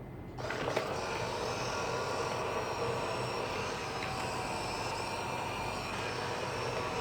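Small robot vacuum cleaner starting up about half a second in and running: a steady motor and suction-fan whine with a hiss.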